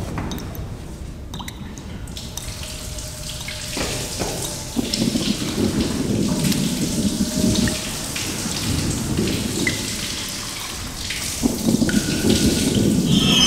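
Water dripping and splashing, with many small sharp drips over a noisy wash and a low rumble that swells in the middle and again near the end.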